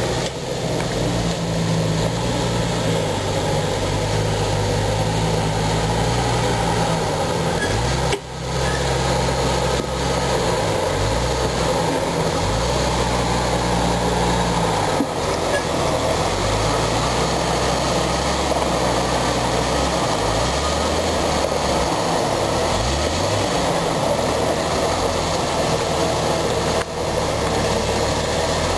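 Jeep Cherokee engine running under load as the lifted 4x4 crawls over rocks, its pitch rising and falling as the throttle is worked.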